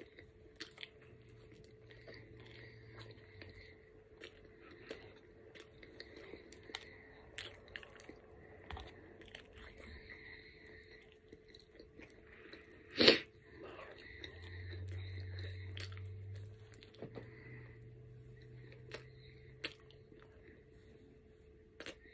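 Close-up chewing of an egg, cheese and chorizo bagel sandwich, with many small wet mouth clicks and lip smacks. One sharp, much louder knock about halfway through, then a low hum for a few seconds.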